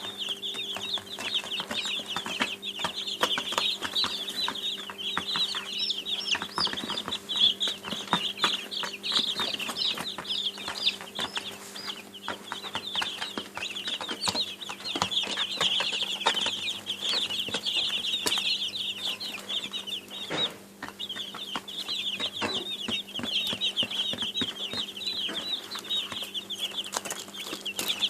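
A flock of baby chicks peeping nonstop, many short, high cheeps overlapping, with a brief lull about twenty seconds in. A faint steady hum and scattered light clicks sit underneath.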